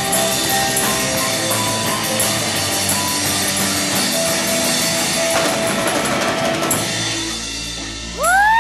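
Live rock band playing: drum kit with cymbals, guitar and keyboard, with a tambourine shaken along. The playing thins out about seven seconds in, then a loud final note slides up in pitch and holds.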